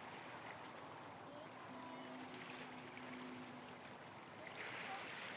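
Faint water's-edge ambience: small waves lapping and trickling on shoreline rocks, with a soft rush of noise growing near the end and a faint steady hum for about two seconds in the middle.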